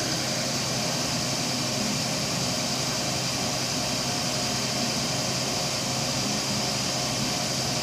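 Turntable-ladder fire truck's diesel engine running steadily, powering the raised aerial ladder.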